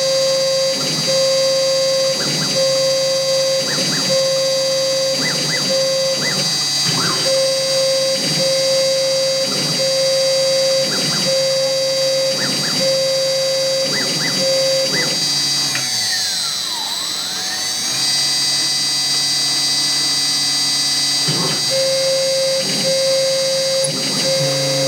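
Small CNC milling machine running a job: motor whines at steady pitches that start and stop every second or so, each move punctuated by short knocks. About two thirds of the way through, one whine falls in pitch and rises again as a motor slows and speeds back up.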